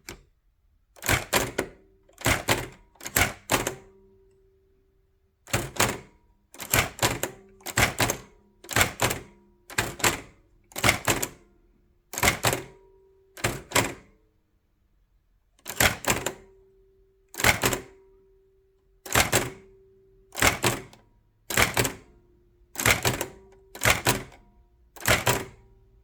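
VariTyper folding typewriter, a 1920s Hammond Multiplex-type machine, being typed slowly: each keystroke is a sharp double clack as the hammer strikes from behind the paper and ribbon against the type shuttle, about one a second, with two short pauses.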